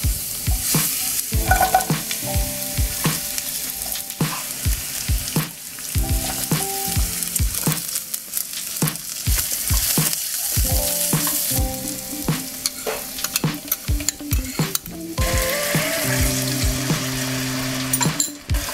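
Chopped garlic, onion, bell peppers and cracked black pepper sizzling in a hot nonstick frying pan while a spatula stirs them, knocking and scraping on the pan many times. About fifteen seconds in the sizzle turns louder and hissier, as the dark soy-and-oyster sauce goes into the hot pan.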